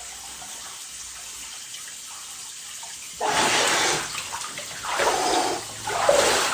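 Water splashing as a person moves in a cold plunge, in three loud bursts starting about three seconds in, after a faint steady hiss.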